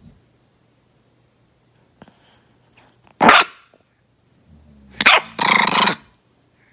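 Bulldog puppy giving small barks with some growl in them: one a little past halfway, then two more close together near the end, the last the longest.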